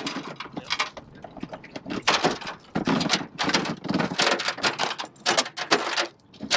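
Anchor chain paying out over the bow of an aluminium dinghy, rattling and clanking against the metal hull in irregular runs, heaviest from about two seconds in.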